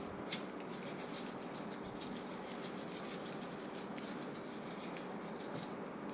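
Coarse salt shaken from a shaker onto raw steaks and a cutting board: a faint, quick run of small ticks from the grains and the shaker.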